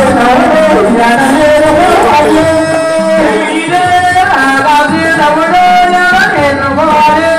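Music: a voice singing long held notes over drums.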